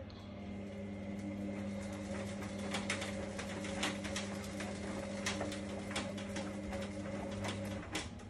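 Indesit washer dryer's drum motor turning the drum in a wash tumble: a steady motor hum with a few held tones, scattered clicks and knocks over it, which stops shortly before the end.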